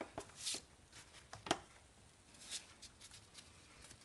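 Faint scattered clicks, scrapes and glove rustles as gloved hands handle and seat the distributor back onto the engine.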